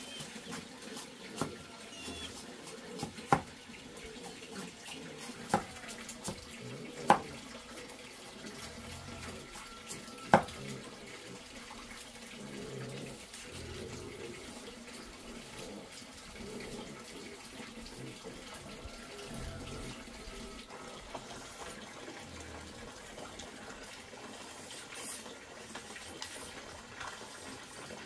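Steady running water, with a handful of sharp knocks in the first ten seconds, the loudest about seven and ten seconds in.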